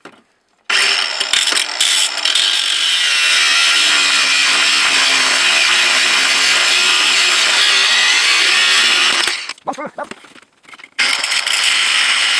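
Power tool with a cut-off blade cutting through a screw on a cast-iron wood stove, a steady grinding noise with a wavering low tone. It starts just under a second in, stops about nine seconds in, and starts cutting again near the end.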